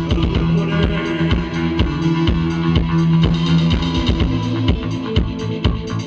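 A band playing live: a drum kit beating steadily under held bass and guitar notes.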